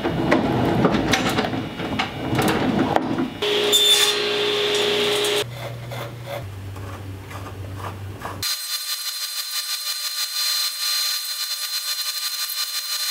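Wooden pieces being handled with knocks and scrapes, then about eight seconds in a Craftsman table saw starts running with a steady whine as a board is fed through the blade.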